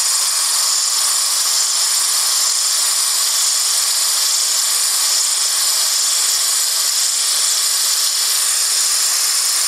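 Steady, high hiss of compressed air jetting through a 1.6 mm nozzle into a venturi tube and onto a fan blade, at about 3.8 litres a minute.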